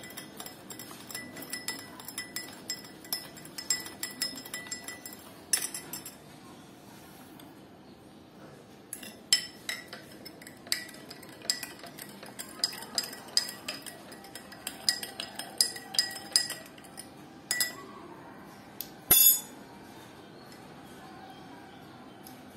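Metal spoon stirring lemon juice in a glass tumbler, clinking repeatedly against the glass as the sugar is dissolved; after a short pause the stirring clinks go on in a second glass, with one louder clink near the end.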